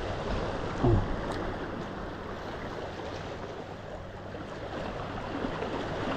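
Steady wash of sea water and wind along a rocky shoreline, with a brief low thump about a second in.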